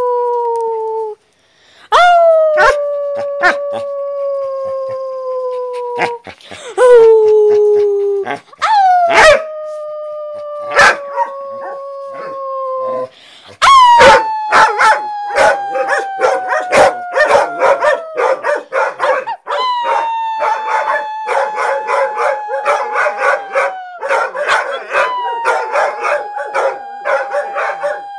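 Dogs howling: a run of long howls, each sliding slowly down in pitch over a few seconds, with short breaks between. From about halfway a second, rougher and rapidly pulsing voice joins in, and the howling grows denser.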